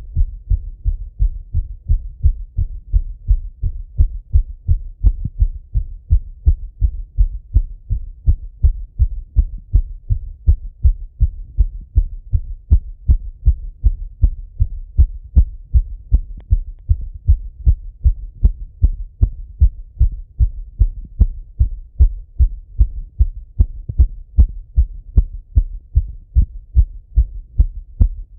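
A man's heartbeat heard through a Littmann stethoscope: fast, regular beats with no pause, a heart still racing in recovery after running.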